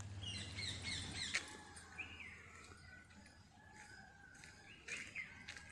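Several birds chirping and calling at once, a flurry of quick chirps at first, then longer whistled notes, with a steady low hum underneath.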